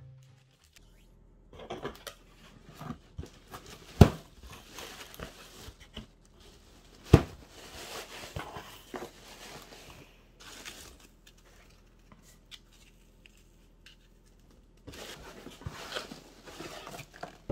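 Cardboard box being opened and hands rustling and crinkling through foam packing peanuts, with two sharp knocks about four and seven seconds in. It goes quiet for a few seconds, then the rustling picks up again near the end.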